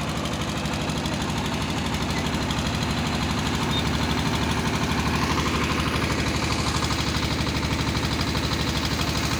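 An engine running steadily with a fast, even beat, getting a little louder about four seconds in.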